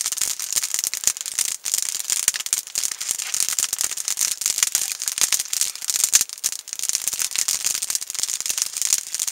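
Campfire of resinous pine kindling and brush crackling, a dense, fast stream of sharp snaps.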